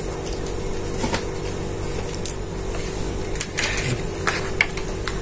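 Scattered light clicks and taps as a plastic ZKTeco F18 access-control terminal and its wires are handled on a table, over a steady low hum.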